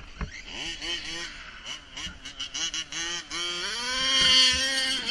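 Radio-controlled truck's motor revving in short blips, its pitch rising and falling, then held steadily at high revs and getting louder as the truck runs down the snowy road.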